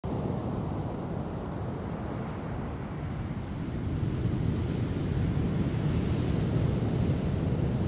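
Ocean waves breaking, heard as a steady low rush of surf noise with wind buffeting the microphone, swelling a little about halfway through.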